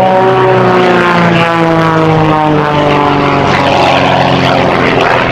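Highly modified Pitts aerobatic biplane's piston engine and propeller running at high power, with a pitch that falls slowly as it goes.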